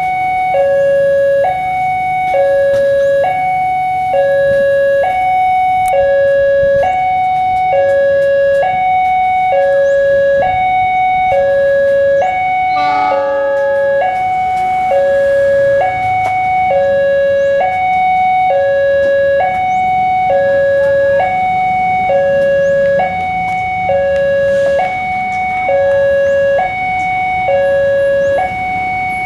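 Railway level-crossing alarm sounding: an electronic two-tone chime alternating steadily between a lower and a higher tone, about a second each. A brief horn-like blare cuts in once about halfway through.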